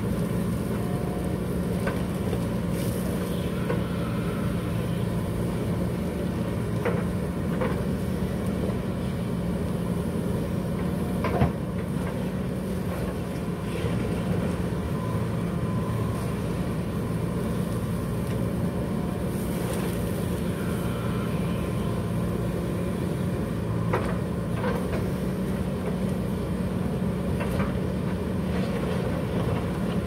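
JCB 3DX backhoe loader's diesel engine running steadily under working load while the backhoe digs, with a few sharp knocks, the loudest about eleven seconds in.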